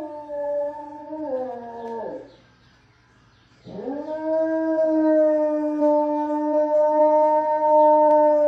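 A dog howling: one long, falling howl that breaks off about two seconds in, then after a short pause a second howl that rises and is held steady.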